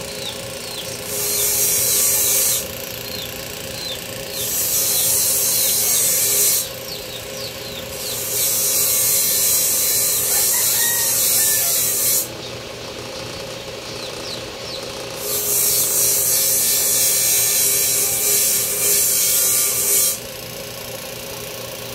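A power grinder running steadily, with a workpiece pressed against it four times; each contact is a harsh hiss lasting from about one and a half to five seconds.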